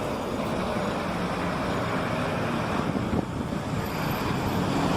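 Steady rumble and hiss of a vehicle or road traffic, with a faint knock about three seconds in.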